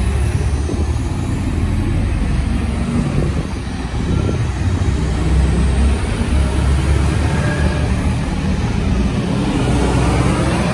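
DSB IC3 (class MF) diesel multiple unit running past: a steady, heavy rumble of its diesel engines and wheels on the rails.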